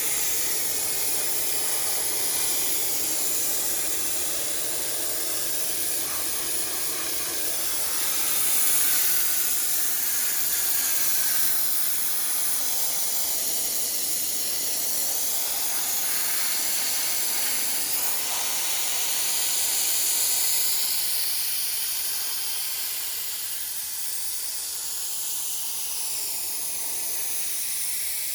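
Sandblaster blasting abrasive against a steel truck frame: a steady hiss that swells and eases a little in loudness.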